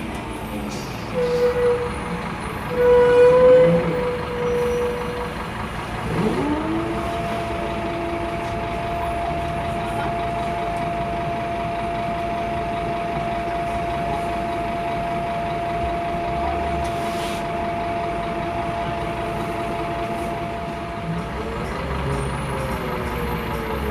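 Scania K230IB city bus's ZF gearbox whining over the engine and road noise. The whine rises sharply about six seconds in, holds one steady pitch for around fifteen seconds, then drops away near the end.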